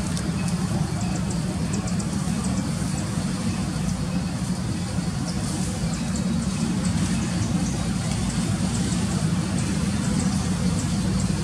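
Steady low rumble, with faint scattered high ticks over it.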